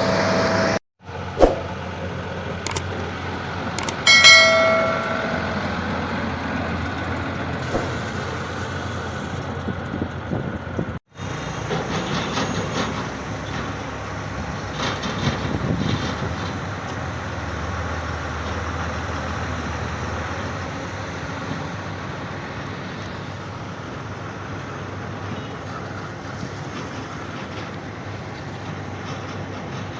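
Heavy construction machinery engine running steadily. A sharp knock comes about a second and a half in and a short pitched tone about four seconds in, and the sound cuts out briefly twice.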